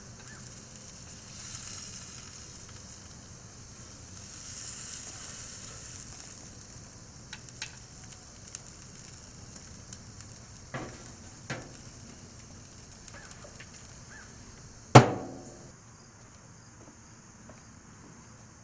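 Chicken sizzling on a grill as a steady hiss, with a few light clicks and one loud knock about fifteen seconds in.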